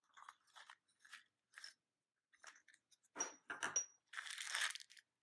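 Small plastic surprise-egg halves handled with a few light scrapes and clicks, then a clear plastic candy bag crinkling in two stretches as it is lifted out of the egg, the second about four seconds in.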